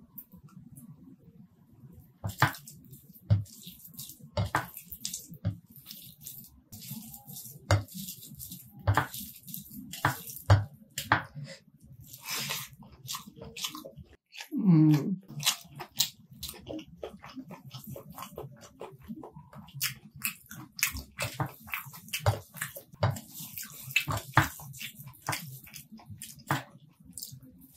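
Close-up wet eating sounds of chicken curry and rice eaten by hand: open-mouthed chewing with frequent sharp lip smacks and clicks. A brief low hum from the eater comes about halfway through.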